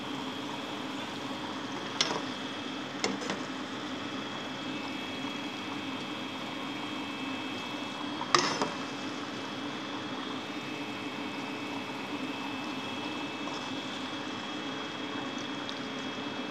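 Flour-coated chicken pieces deep-frying in hot oil with a steady sizzle. A metal spatula knocks sharply against the pan three times, about two, three and eight seconds in, the last the loudest.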